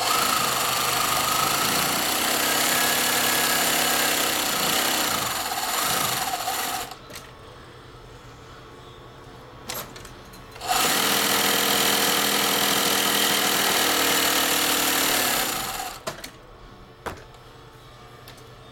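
Singer 107W53 cylinder-arm industrial sewing machine, driven by its table motor, stitching steadily at speed. It runs in two bursts, one of about seven seconds and one of about five seconds, with a pause between them, then stops with a few light clicks.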